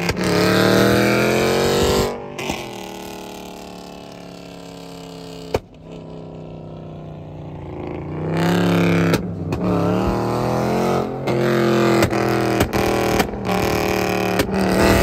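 Dodge Charger Scat Pack Widebody's 6.4-litre HEMI V8 revving and backing off again and again, its pitch climbing and dropping, with sharp exhaust pops and crackles on the lift-offs from a burble tune.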